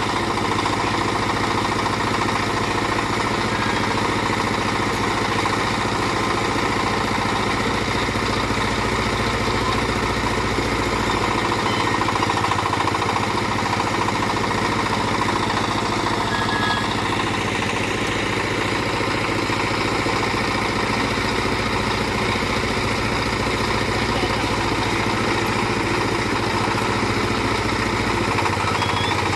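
Small backhoe's engine running steadily under work, a continuous even drone with no clear revving or pauses.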